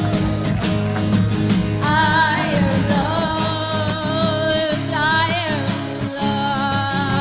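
Live song: a singing voice with vibrato comes in about two seconds in over a steadily strummed guitar.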